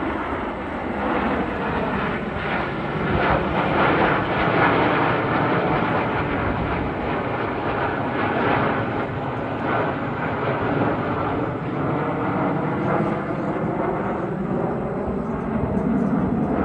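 Jet noise from the Red Arrows' formation of BAE Hawk T1 jets passing overhead: a steady, loud roar with slowly sweeping tones, loudest a few seconds in.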